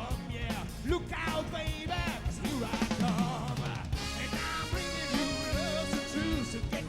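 A live soul band playing a song, with a lead voice singing over drums and bass. About four seconds in, long held notes from the band come in.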